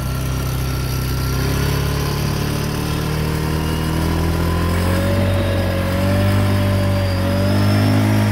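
Off-road vehicle engine running while riding over sand, its pitch climbing slowly over the last few seconds as it speeds up, with a higher whine joining about halfway through.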